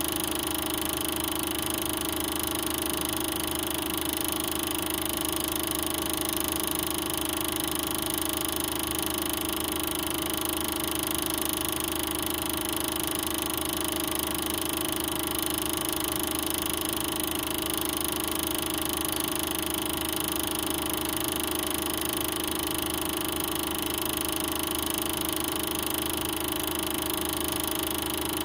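Steady, unchanging mechanical hum and hiss with several constant tones and no separate events: the background noise of a silent Super 8 film transfer, with nothing tied to the picture.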